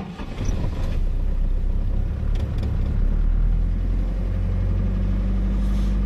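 GAZ Gazelle's ZMZ-406 four-cylinder petrol engine starting in deep frost on 10W-40 oil: it fires within the first second and runs unevenly at first, then settles into a steady, fast cold idle with the revs climbing.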